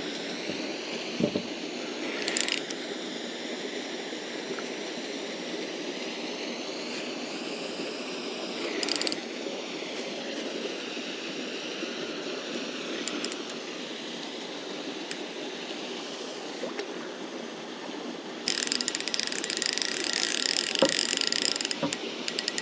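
Fishing reel's drag ticking out line as a hooked carp runs. There are short bursts about 2 and 9 seconds in, then a longer, louder run from about 18 seconds, as the fish wakes up and pulls harder.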